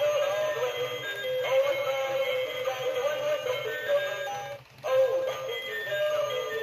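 NB Toys Dancing Santa animated figure playing its built-in electronic song, a melody with synthetic-sounding singing, as it dances; the song breaks off for a moment about four and a half seconds in.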